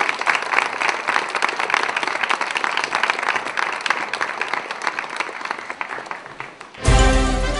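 Audience applauding, a dense patter of many hands clapping that slowly fades. Music starts abruptly near the end.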